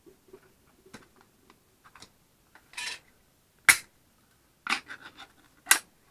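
Tire and rim being worked by hand to force a tennis ball into a dirt bike tire: scattered rubbing and scraping with faint clicks, and a sharp knock just past halfway followed by two more near the end.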